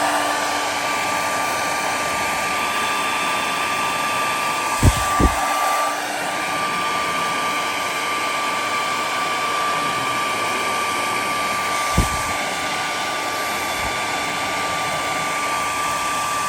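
Hair dryer running steadily, with a high whine from its fan motor over a rush of air. There are two short knocks about five seconds in and another at about twelve seconds.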